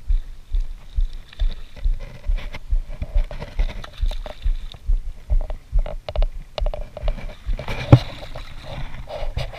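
A hooked sea bass being reeled in on a spinning reel, with a steady low knocking about three times a second and the fish splashing at the surface. A loud splash comes about eight seconds in as the bass is brought to the landing net.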